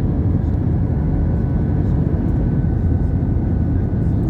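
Airbus A320 jet noise: a steady low rumble of engines and airflow with a faint steady whine above it.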